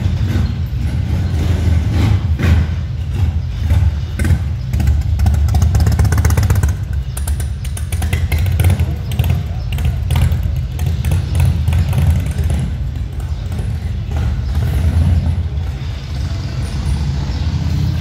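Harley-Davidson V-twin motorcycle engine running, with a loud, low exhaust note that swells and eases in level. It is louder for the first several seconds and a little quieter from about seven seconds on.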